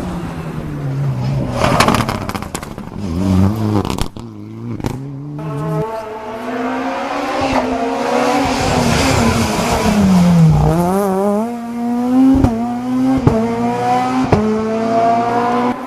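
Rally cars at full throttle on a stage, engines revving hard through the gears: the pitch climbs and drops with each shift and lift. There are three sharp cracks in the last few seconds.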